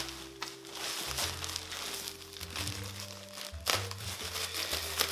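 Plastic packaging crinkling and rustling as it is handled and pulled open, with a sharper crackle a little past halfway, over soft background music.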